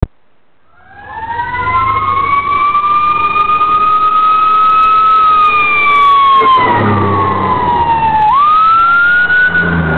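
Orlando fire engine sirens wailing: overlapping siren tones that swell in about a second in and slide slowly up and down, one dipping and sweeping quickly back up about eight seconds in. Low engine noise rises under it near the end as the apparatus draws close.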